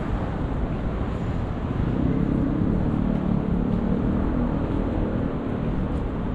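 Street traffic: a steady rumble of cars on the road beside the sidewalk, swelling as vehicles pass from about two seconds in.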